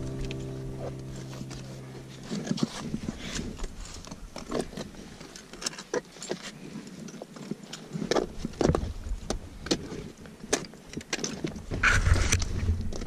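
Metal climbing gear clinking and gloved hands and boots knocking and scraping on granite blocks during a roped scramble, a run of sharp, irregular clicks. A low wind rumble on the microphone comes in near the end.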